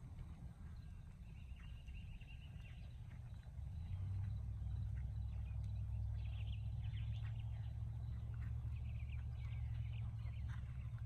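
A low rumble that grows louder about three and a half seconds in, with birds chirping at intervals above it and the soft hoofbeats of a horse trotting on sand footing.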